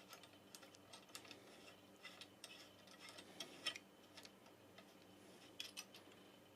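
Near silence with faint, scattered small clicks and taps of hands handling a microphone stand's top and a metal mounting bracket.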